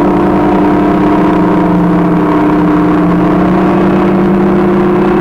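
Steady, unchanging drone of heavy construction machinery engines running.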